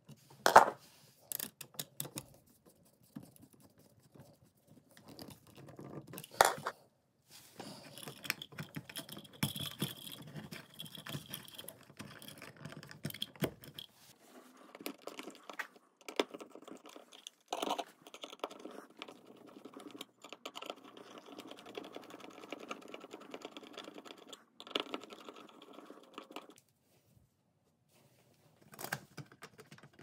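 Small clicks, taps and scrapes of hand tools working on an electrical wall outlet: a wire stripper on the ground wire, a screwdriver turning the metal mounting screws, and the plastic outlet and wall plate being handled. The loudest is a sharp click about half a second in, with a few more spaced through.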